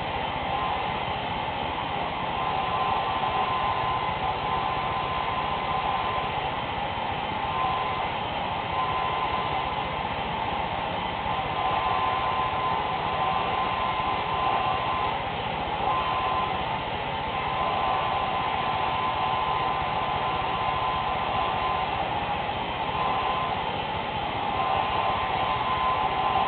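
Handheld electric hair dryer blowing steadily, a constant hiss of air with a steady whine from its motor, swelling and dipping a little as it is moved about the head.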